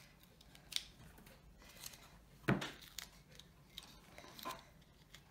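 Faint handling of a cardboard box and adhesive tape as a strip of tape is pressed into the box's inside corner: scattered light rustles and clicks, with one sharper knock about two and a half seconds in.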